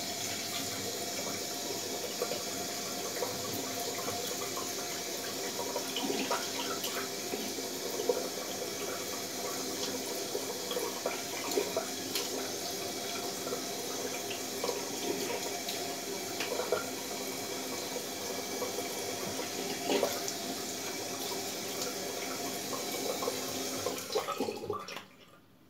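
Bathroom tap running steadily into a sink while a man rinses his face, with short splashes now and then; the water is shut off near the end.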